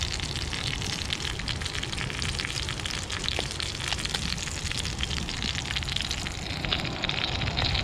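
Wild pig carnitas frying in their own rendered lard in a cazuela: a steady, dense sizzle of fine crackles.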